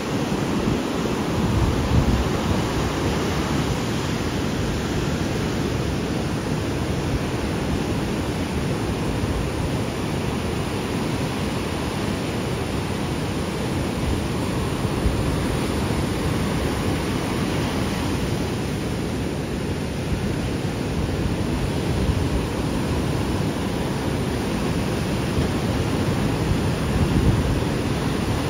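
Ocean surf washing in steadily on a beach, with wind rumbling on the microphone.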